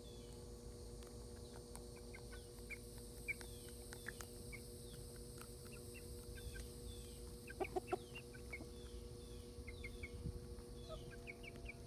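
Chickens clucking softly while they feed, with a short run of louder clucks about eight seconds in and faint high chirps throughout.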